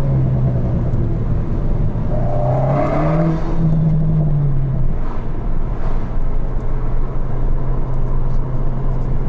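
Alpine A110 engine running as the car drives, heard inside the cabin over tyre and road noise. The engine note rises about three seconds in, drops back a couple of seconds later, and then holds steady.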